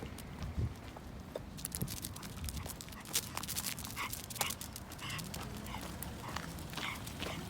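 Toy poodle whining in short high whimpers, eager and over-excited, over a run of quick clicking sounds.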